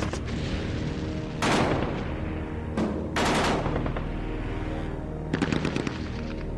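Bursts of machine-gun fire over a sustained music score: noisy bursts about a second and a half and three seconds in, then a quick rattle of shots about five seconds in.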